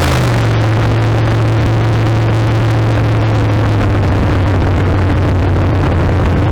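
Big-block Chevy V8 with a tunnel-ram intake, running loud at a steady pitch after a rise in revs just before.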